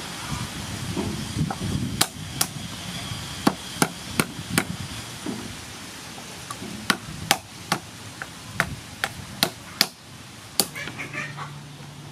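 Cooked crab claw shells being cracked open with a hand tool on a wooden board: a string of sharp cracks and taps, about fourteen in uneven clusters over several seconds.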